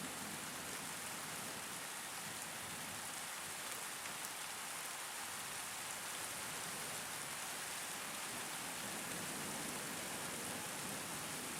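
Steady rain from a thunderstorm falling in an even hiss.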